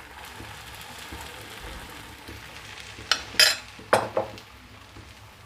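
Butter and egg batter sizzling faintly and steadily in a non-stick frying pan as the batter is ladled into bread slices. About three to four seconds in come a few sharp clinks and knocks of a steel ladle against metal.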